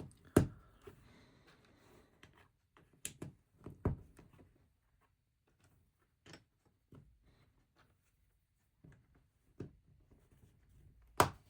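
Plastic LEGO bricks being handled and pressed together: scattered sharp clicks and light knocks, a few seconds apart, the loudest just before the end.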